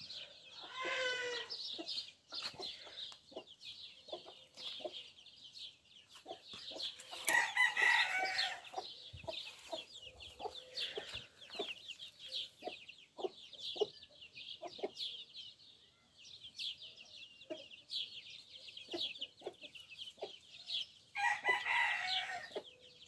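Chicks peeping continuously in rapid high chirps while a broody hen clucks in short low notes. Louder drawn-out chicken calls stand out about a second in, around eight seconds, and near the end.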